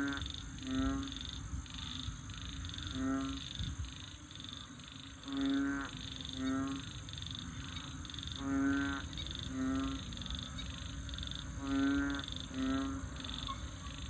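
Frog chorus. The loudest calls are low, pulsed croaks, each about half a second long, mostly coming in pairs every two to three seconds. They sound over a continuous rapid high peeping from another frog species.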